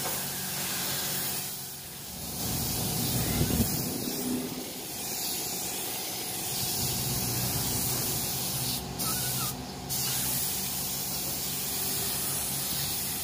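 Gravity-feed spray gun spraying nitrocellulose (NC) paint: a steady hiss of compressed air and atomised paint as the second coat goes on. The hiss eases about two seconds in and cuts out briefly twice near the ninth and tenth seconds as the trigger is let off between passes.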